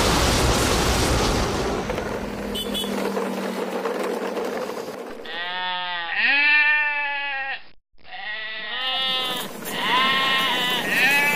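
A rushing noise for the first few seconds, then a sheep bleating: several drawn-out bleats from about five seconds in, broken by a short gap, then more bleats near the end.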